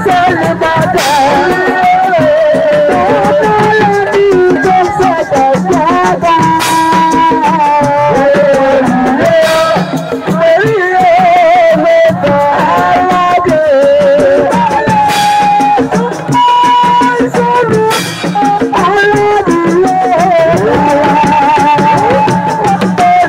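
Live assiko band music: a lead voice sings a wavering, ornamented melody over fast, dense hand percussion with a rattling shaker.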